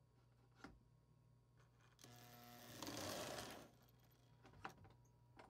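Marx 666 toy steam locomotive's electric motor whirring as it runs along the track, growing louder for about a second and a half in the middle and then fading, over a low steady hum with a few faint clicks. It is running smoothly, its wheels and contact plate freshly cleaned.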